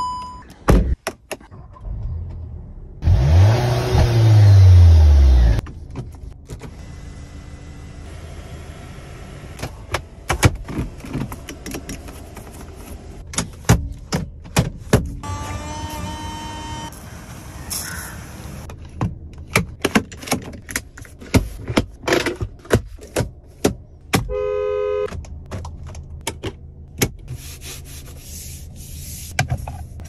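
A string of clicks and clunks from a Volkswagen SUV's cabin controls being worked, among them the headlight switch knob and the storage flap beneath it. A few seconds in comes a loud sound that rises and then falls in pitch over about two seconds. A short steady tone of about a second sounds near the end.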